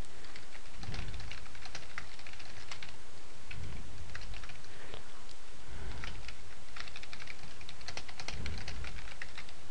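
Typing on a computer keyboard: irregular bursts of quick keystrokes with short pauses between, over a steady background hiss.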